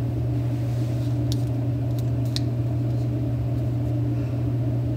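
Steady low mechanical hum in a small tiled room, with a few light clicks between one and two and a half seconds in.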